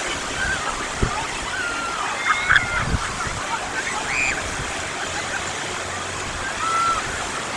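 Sea surf washing steadily on a beach, with scattered distant voices and shouts of people, the clearest about two and a half seconds in, and a couple of brief low bumps.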